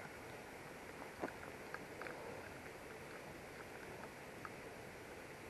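Faint, steady outdoor hiss with a few light, irregular ticks, the sharpest about a second in.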